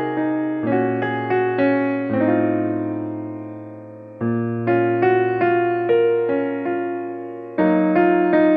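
Background piano music: a gentle melody of struck notes over held bass notes, with one chord left to fade out about two seconds in before the tune picks up again about four seconds in.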